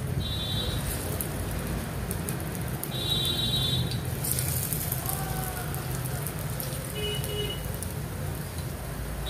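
Bottle gourd peel fritters sizzling steadily as they shallow-fry in a little hot oil in a kadai. A few short high chirps sound over the sizzle, one near the start, one about three seconds in and one about seven seconds in.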